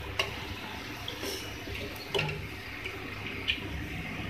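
Samosas deep-frying in hot oil with a steady sizzle. A metal spoon clicks against the metal pan a few times as a fried samosa is lifted out.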